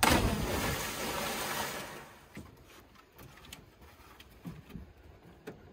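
A person hitting the lake water after a cliff jump: a splash, then about two seconds of rushing, churning water that fades away. A few faint ticks follow.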